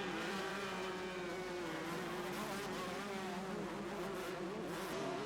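Two-stroke motocross bikes racing, their engine note wavering up and down as the riders work the throttle.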